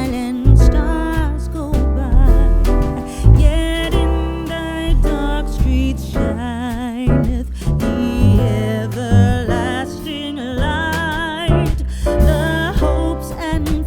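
Background music: a song with a singing voice wavering in pitch, over a strong bass line and accompanying instruments.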